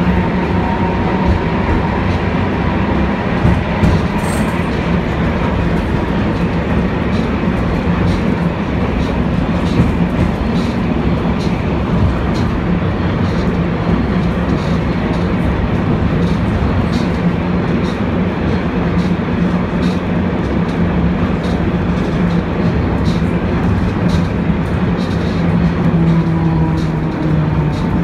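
Inside a wooden M-24 vintage tram running along its street track: a steady rumble of wheels on rail under a motor hum, with frequent light clicks and rattles. Near the end the hum's pitch dips slightly.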